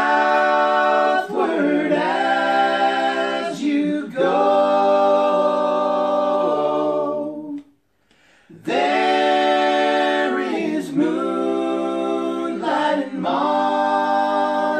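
Men's voices singing a cappella in multi-part harmony, holding long chords. Two phrases, with a brief pause about eight seconds in.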